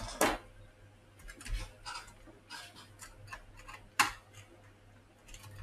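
Sharp plastic clicks and small knocks from a laptop's plastic case and parts being worked apart by hand, with a louder click just after the start and another about four seconds in.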